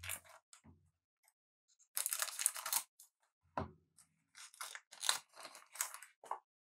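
A trading-card pack being torn open, one rasping tear about two seconds in, followed by a run of short crinkles and rustles as the wrapper and cards are handled.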